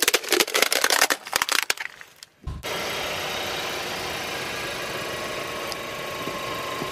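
Car tyre crushing an inflatable plastic globe ball, a dense run of crackling and crunching plastic for about two seconds. Then a car engine running steadily as the tyre creeps over a soft squishy toy.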